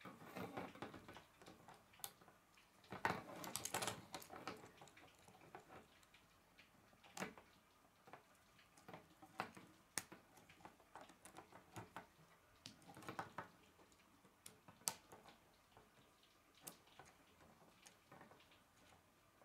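Plastic K'nex rods and connectors being handled and snapped together, giving scattered light clicks and rattles. There are denser bursts of clicking about three seconds in and again around thirteen seconds.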